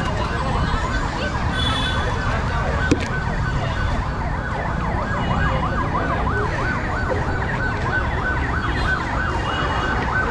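An emergency vehicle's siren wailing in quick up-and-down sweeps, over steady low street noise. A single short knock about three seconds in.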